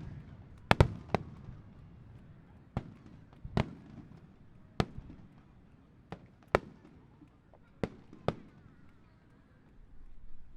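Fireworks shells bursting overhead: about ten sharp bangs, a quick cluster in the first second, then single bangs a second or more apart, thinning out and stopping shortly before the end.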